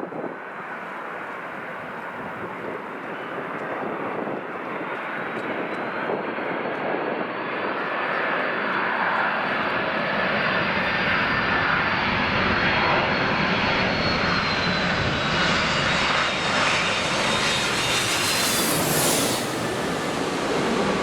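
Airliner's engines growing steadily louder as the aircraft approaches and passes close, with a thin high whine that slowly rises in pitch. The sound is loudest near the end.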